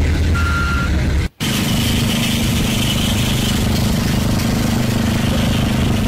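Construction-site heavy vehicles running, with a reversing alarm sounding a beep near the start. About a second in the sound cuts off abruptly and switches to another stretch of steady engine noise with a low hum.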